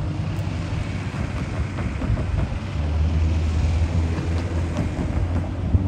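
Steady low rumble of an intermodal freight train rolling away down the line, mixed with wind on the microphone.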